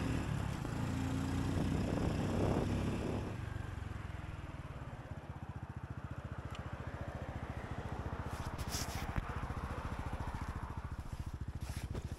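Honda Super Cub's single-cylinder four-stroke engine running with wind noise as the bike slows, then settling to a steady, rapid idle putter from about four seconds in. There are a few short clicks near two-thirds of the way through.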